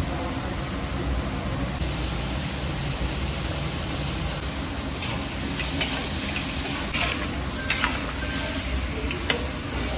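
Meat and diced vegetables frying in a kazan with a steady sizzle. From about five seconds in, a spatula scrapes and clicks against the pot as the mix is stirred.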